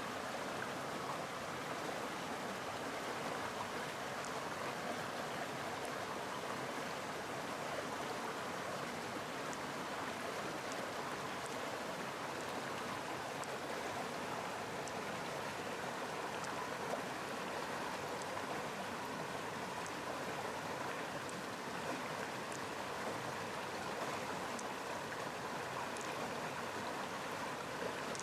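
Steady rush of running stream water, with a few faint light clicks here and there.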